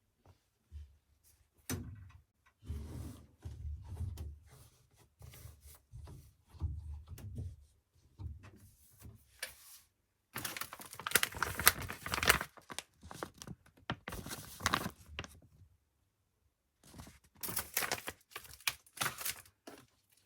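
Zanussi FL984CN front-loading washing machine tumbling its wash load on a 35° program. The drum turns in spells of a few seconds with quiet pauses between, giving low thumps and rumbles from the falling laundry and a swishing of wet washing and water.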